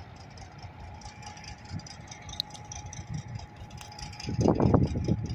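Diesel locomotive engine running as it approaches, a steady low hum that grows into a louder rumble and rattle about four seconds in.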